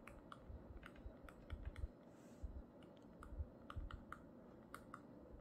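Faint, irregular clicks and taps of a plastic stylus tip on a tablet touchscreen during handwriting, about three a second, with soft low thumps.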